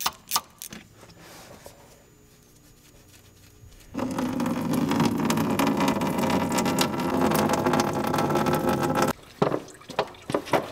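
Radiator coolant draining from an opened plastic drain petcock: a few clicks as the petcock is turned by hand, then about four seconds in a stream of coolant starts pouring and splashing loudly below. Near the end it drops away to a few sharp drips.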